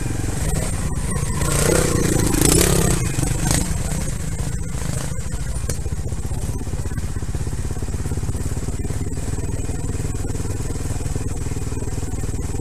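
Trial motorcycle engine idling steadily, with a brief louder rush of noise about two seconds in.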